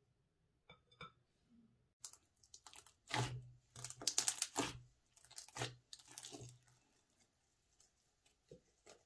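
Hands kneading and squeezing thick, air-filled slime in a glass bowl: wet squelching with dense crackling and popping as trapped air bursts. It is loudest a few seconds in and thins out near the end as the slime is stretched, with a few faint clicks before the kneading starts.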